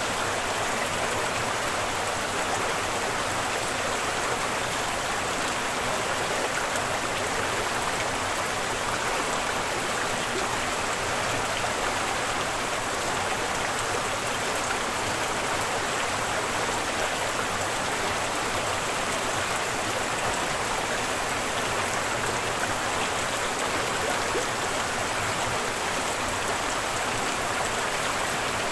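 Rain falling steadily onto a swimming pool's water surface, an even, unbroken hiss.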